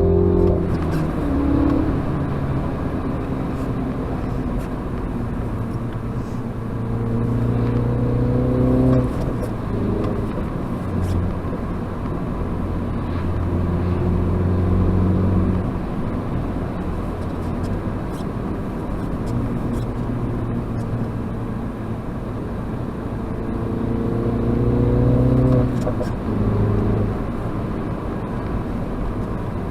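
Mini John Cooper Works F56's turbocharged 2.0-litre four-cylinder engine on a drive, with road noise. Twice the engine note climbs in pitch under acceleration and then drops sharply at a gear change, about nine seconds in and again near the end. Between the pulls it runs at a steadier pitch while cruising.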